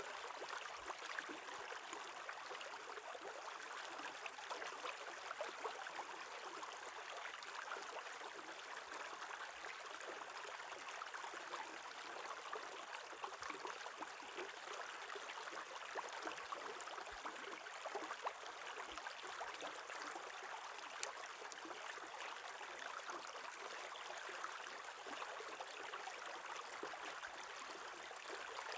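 Small stream running over a rock in shallow water: a steady rush of flowing water with many small bubbly pops and splashes.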